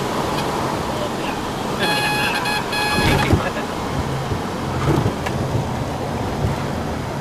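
Cabin noise of a Cessna 414 Chancellor's twin turbocharged piston engines and propellers during the landing rollout. About two seconds in, a short high beeping tone sounds in broken pulses, followed by a few low thumps.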